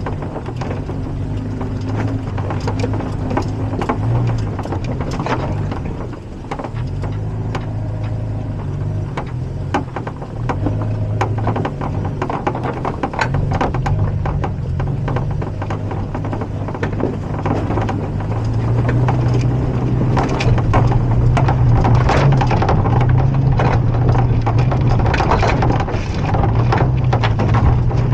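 Toyota Tacoma pickup creeping along a rocky dirt trail: the engine runs with a low, wavering hum under frequent knocks and rattles from the tyres on stones and the truck bouncing. It gets louder about two-thirds of the way through.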